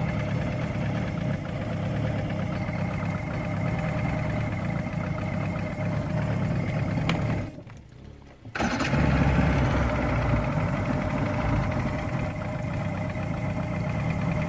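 Johnson V4 two-stroke outboard motor running steadily. About seven seconds in it is shut off and dies away, then about a second later it is restarted, catching at once and running on.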